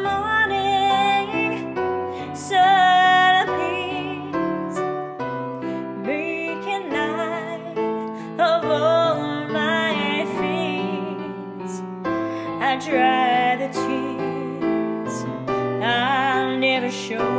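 A woman singing held notes with strong vibrato over piano accompaniment.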